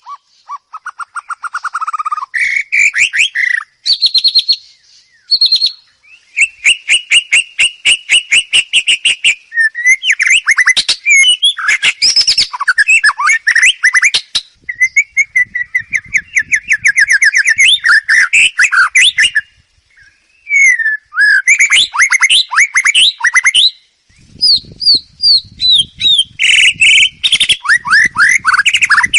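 White-rumped shama (murai batu) singing a loud, varied song: fast runs of repeated notes and trills, broken by a few short pauses.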